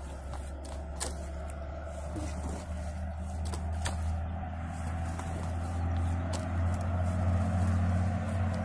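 A hoe scraping and turning a heap of wet clay mud, with a few short scrapes and knocks. Under it a low steady engine hum grows gradually louder.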